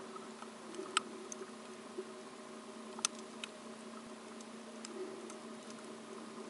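Underwater ambience beside a marina dock: a steady low hum with scattered sharp clicks and ticks, the two loudest about a second in and about three seconds in.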